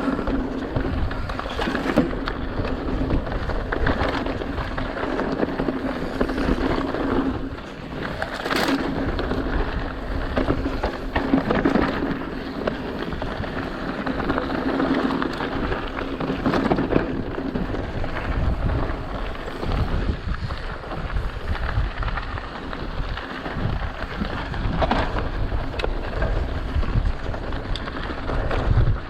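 Mountain bike riding over rough, rocky dirt singletrack: tyres crunching over dirt and rock, and the bike clattering and rattling over the bumps. A steady low hum runs under it for the first half or so.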